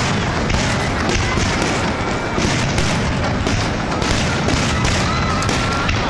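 Fireworks display: a dense, continuous barrage of bursting shells, many booms and cracks a second overlapping into a steady din.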